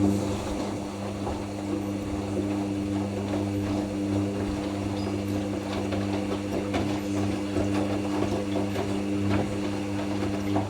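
Hoover NeXtra HNL3146 washing machine running between its second rinse and its intermediate spin: a steady mains-pitched hum with water rattling through it, most likely the drain pump emptying the drum. It stops suddenly near the end.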